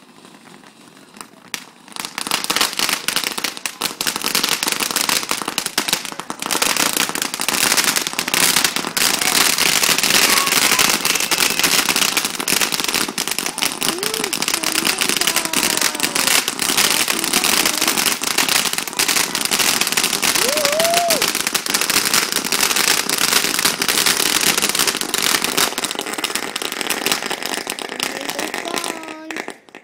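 Ground fountain firework spraying sparks, with a dense, continuous crackle that starts about two seconds in, thins out near the end and stops.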